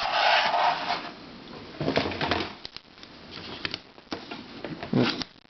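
Handling of a toy puzzle: a rustle in the first second, then a few light clicks and taps as it is turned over and set down.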